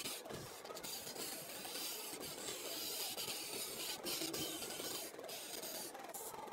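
Wood lathe turning a cot leg while a hand chisel scrapes the spinning wood: a steady rasping hiss with a few short, sharper scratches.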